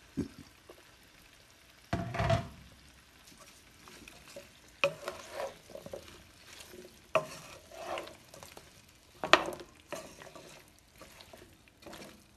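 Wooden spatula stirring chunks of white radish and beef in a stainless steel pan, scraping and knocking in irregular strokes a few seconds apart, over a light sizzle from the nearly dry pan.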